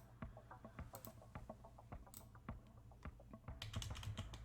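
Computer keyboard being typed on: faint, irregular key clicks, several a second.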